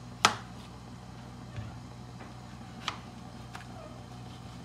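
Kitchen knife slicing a cucumber and knocking on a plastic cutting board: one sharp knock about a quarter second in, the loudest, then three fainter knocks spread over the next few seconds. A low steady hum runs underneath.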